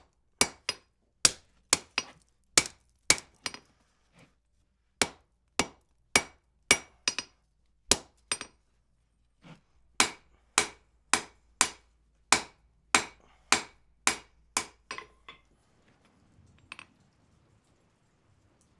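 Blacksmith's hammer forging a wrought iron bar on an anvil: about two ringing blows a second in runs with short pauses. The hammering stops about three-quarters of the way through, followed by one faint knock.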